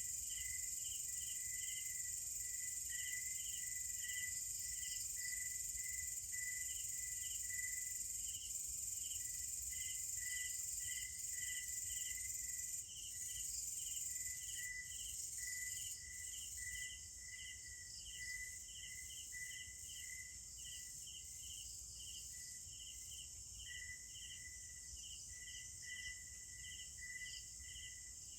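Night insects calling: a steady, high-pitched shrill drone with a lower chirp repeating about two to three times a second over it. The shrill drone drops in level a little past halfway.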